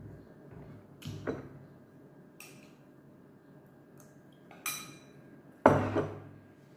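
A spoon and dishes clinking and knocking on a table during a meal: about five short, sharp knocks, the loudest near the end.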